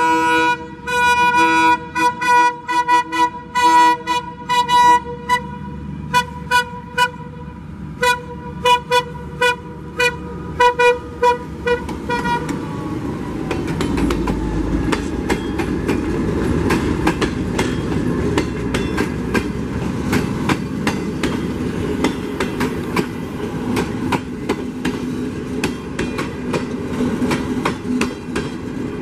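The horn of a Dalian CKD8H diesel locomotive gives a held blast and then a long string of short toots as it approaches, sounded in greeting. The horn tone slides down as the locomotive passes. Then the locomotive and its CNR passenger coaches run by with a steady rolling noise and the clickety-clack of wheels over rail joints.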